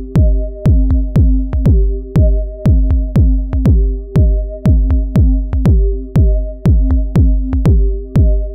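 Electronic background music: a drum-machine kick beat about twice a second under a steady held synth chord.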